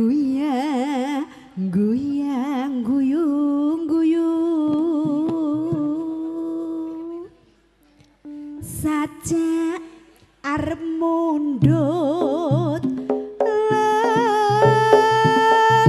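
A female campursari singer sings through a microphone in slow, drawn-out phrases with heavy vibrato, mostly unaccompanied. Low held instrumental notes join beneath her voice about twelve seconds in.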